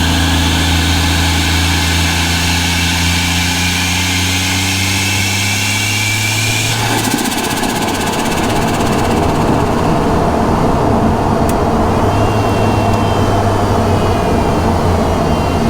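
Turbocharged Barra inline-six engine of a Ford Falcon G6E Turbo, heard in the engine bay, running with revs and turbo whine slowly rising. About seven seconds in the throttle closes and the steady note breaks into a rough, rapid chattering rush, the turbo fluttering as boost is dumped. The engine then settles back to a steady low note while a faint turbo whine falls away.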